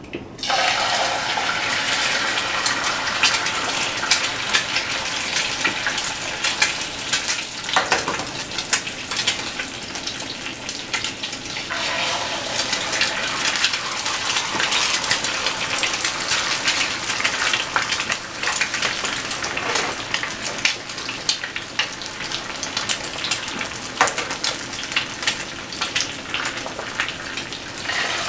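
Eggs frying in hot oil in a skillet, sizzling with many sharp crackles and pops. The sizzle starts suddenly as the first egg drops into the pan.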